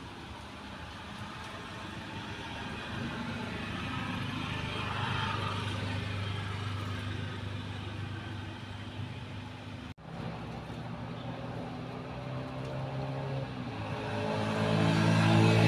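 A motor vehicle's engine running with a low hum, swelling about five seconds in and growing louder again near the end.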